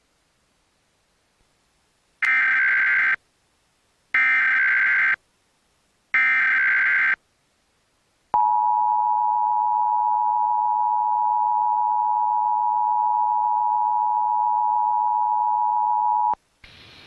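Emergency Alert System opening sequence: three one-second bursts of the SAME digital header data tones, about a second apart, followed by the EAS two-tone attention signal held steadily for about eight seconds and cut off sharply. These tones announce the start of an emergency alert, here a national test.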